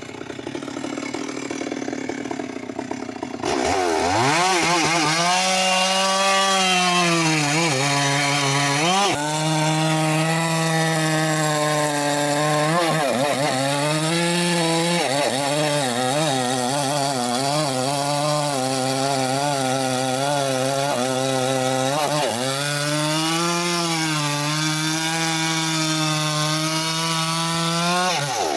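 Stihl MS 381 two-stroke chainsaw cutting through a big rain tree (trembesi) log at full throttle, its engine pitch sagging and recovering again and again as the chain bogs in the cut. It runs quieter for the first three and a half seconds, then loud.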